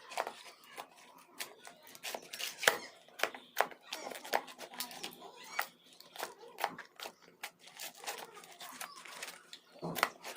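Several old slimes being kneaded and mixed together by hand: sticky squelching with many irregular small pops and crackles. Faint background voices from outside come through now and then.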